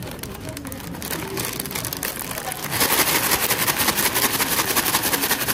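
Rapid, dense rustling and rattling, like dry material being shaken or handled close by, that gets louder about halfway through.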